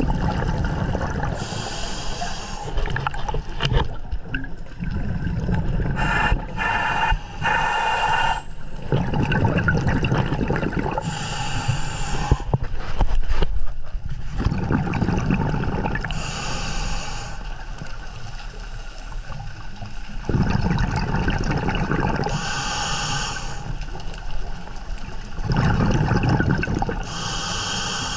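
Underwater sound of a scuba diver breathing through a regulator: a short hiss on each inhale and a low rumble of exhaled bubbles, in a steady cycle about every five seconds.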